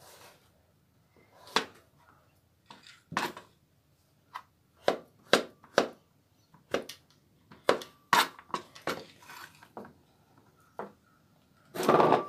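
Kitchen knife chopping cooking chocolate into small pieces on a plastic cutting board: irregular sharp knocks of the blade striking the board, with a longer, louder clatter near the end.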